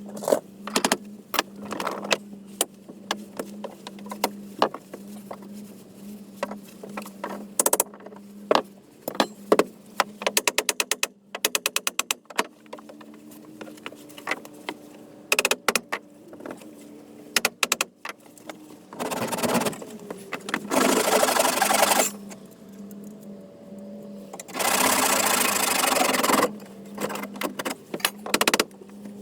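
Tool work on a wooden boat's deckhouse: scattered knocks and taps, a fast run of clicks, then two bursts of a power tool running, about three seconds and about two seconds long. A steady low hum sits underneath.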